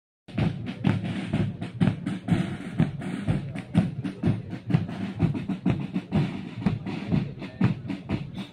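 Parade music dominated by drums, the beats coming quickly and steadily in march time.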